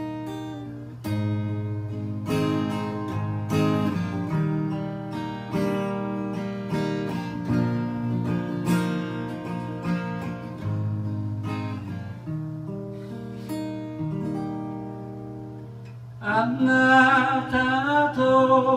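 Acoustic guitar playing an instrumental passage of chords. Near the end a man's singing voice comes in over it, louder than the guitar.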